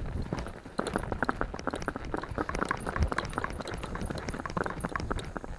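Horse loping: hoofbeats and tack making a dense, irregular run of short clicks over a low rumble.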